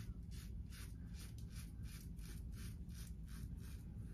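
Henson double-edge safety razor with a Feather blade scraping through lathered beard stubble on the neck, in short quick strokes, about three to four a second.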